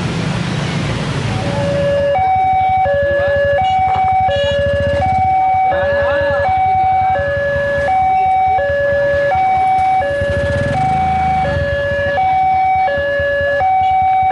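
Railway level-crossing warning alarm from the loudspeaker on the crossing signal. It alternates steadily between two electronic tones, each held about three quarters of a second, and signals that a train is approaching with the barriers down. It starts about two seconds in; before that there is road traffic and motorbike engine noise, and a low engine rumble continues under the alarm.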